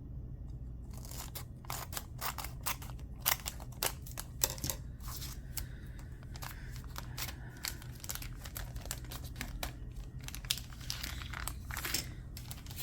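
Scissors cutting through packaging: a run of irregular sharp snips mixed with crinkling and rustling as the material is handled, starting about a second in.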